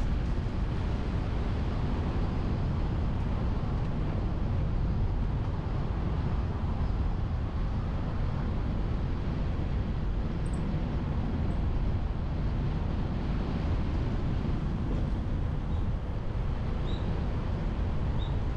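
Steady wind rumble on a car-mounted action camera's microphone, mixed with the road and tyre noise of the car driving along. A few faint, short high chirps come through in the second half.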